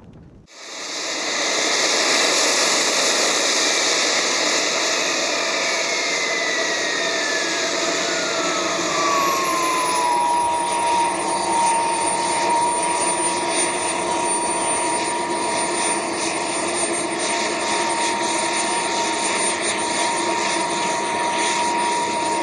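A radio-control model jet engine running loudly with a rushing whine. The whine falls in pitch over a few seconds as it is throttled back, then holds steady.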